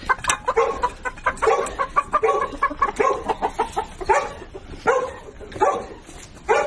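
Chickens clucking, a rapid run of short calls that thins in the second half to single clucks about once a second.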